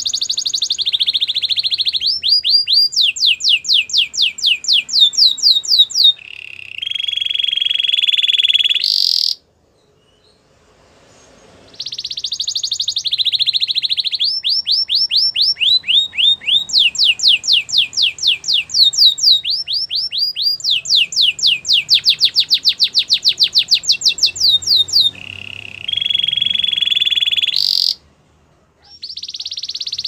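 Domestic canary singing in two long bouts with a short pause between: fast trills of repeated downward-sliding notes, some speeding up, alternating with held, steady whistled notes.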